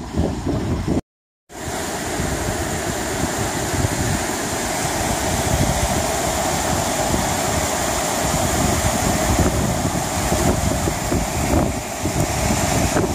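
Steady rush of a swollen river in spate, with wind buffeting the microphone. The sound cuts out completely for half a second about a second in.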